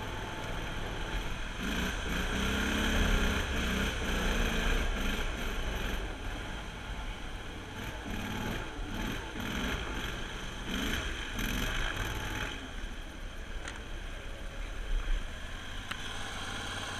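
Copperhead surface-drive mud motor running under load as the jon boat pushes through thick marsh vegetation, with grass brushing and scraping along the hull. The engine sound eases about twelve seconds in, and there is a brief knock a few seconds later.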